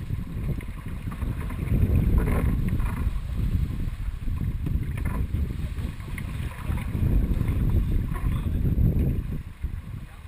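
Wind buffeting the microphone and water rushing along the hull of a Dufour 45e sailing yacht under way. It comes in gusts that swell about two seconds in and again from about seven to nine seconds.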